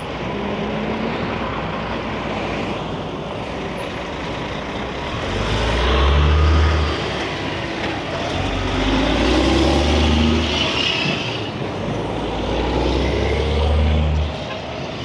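Semi truck on the move, heard from the cab: steady engine and road noise, with a deep engine drone swelling three times for about two seconds each.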